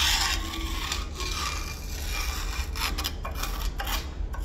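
A screwdriver tip scraping rust and burnt residue out of the heating-element grooves of a metal griddle hot plate, in a run of uneven rasping strokes.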